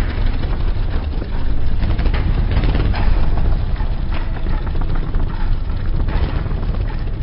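Motorcycles running at highway speed beside a car, a steady low engine rumble mixed with road and wind noise.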